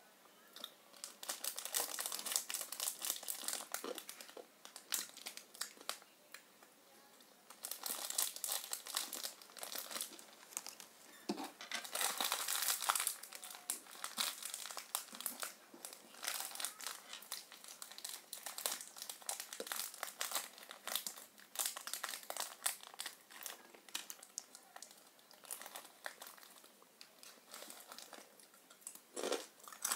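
Crinkling, crackling rustle in irregular bursts, loudest about two to four seconds in, again from about eight to ten seconds and twelve to fourteen seconds in, with weaker crackles in between.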